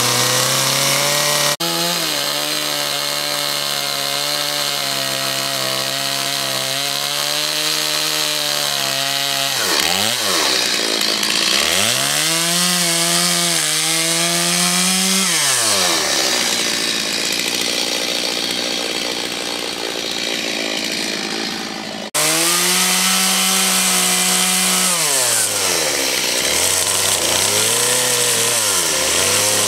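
Two-stroke chainsaw carving into a wooden stump, its engine revving down and back up again and again as the cuts are made. The sound breaks off and resumes abruptly twice, about two seconds in and about two-thirds of the way through.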